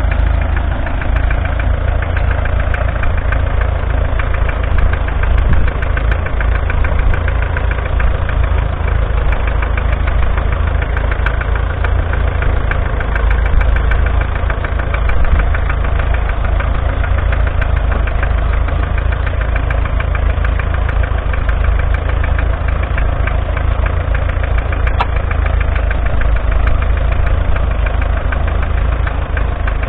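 1958 McCormick International B275 tractor's 2.3-litre four-cylinder diesel engine running steadily.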